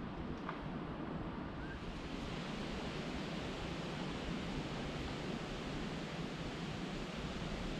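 Steady wind noise on the microphone: a low rumble under an even hiss, with no distinct events.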